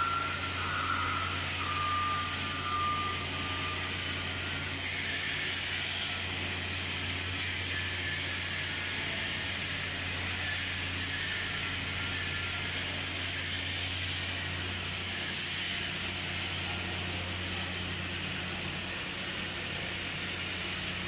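TIG welding arc on stainless steel as filler rod is fed into the joint: a steady hiss with a low hum underneath, at an even level throughout.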